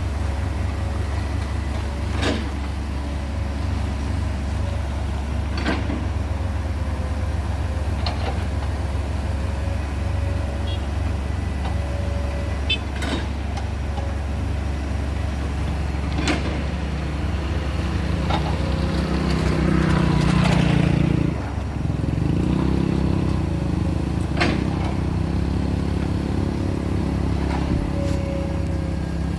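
Heavy diesel engines running under a steady low drone, with short sharp knocks every few seconds. Partway through, one engine grows louder and works harder, cuts off abruptly, then resumes at a lower level.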